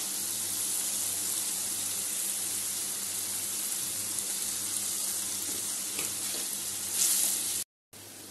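Spice masala frying in hot oil in an aluminium kadai, a steady sizzle. There is a brief louder rush about seven seconds in, then the sound breaks off for a moment and comes back much quieter.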